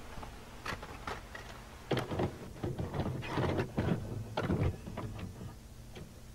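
VCR tape mechanism clicking and clunking irregularly as a videotape is loaded and begins to play.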